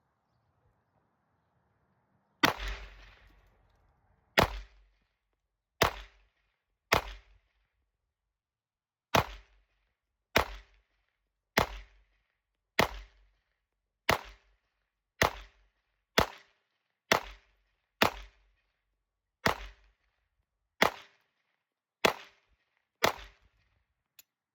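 Seventeen 9mm pistol shots from a Glock 17 Gen 6, fired one at a time about a second or so apart. This empties a full 17-round magazine, and a faint click follows near the end.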